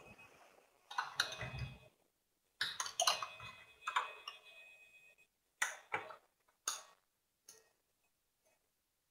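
A series of clicks and small knocks, with a brief ringing tone during a cluster of them about three seconds in, then three sharp separate clicks about half a second apart.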